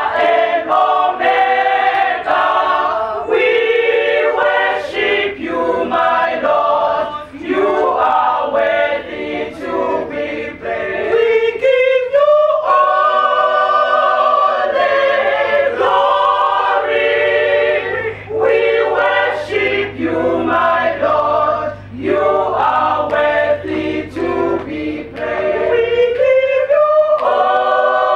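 A women's choir singing a praise song a cappella, several voices in harmony, in phrases broken by short pauses for breath.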